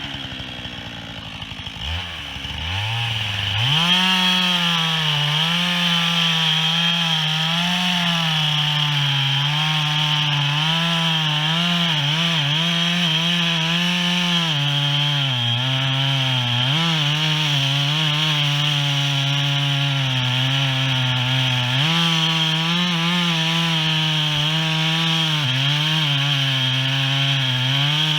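Two-stroke chainsaw running near idle, then revving up about three seconds in and cutting steadily into a tree, its pitch dipping and recovering again and again as the chain takes load.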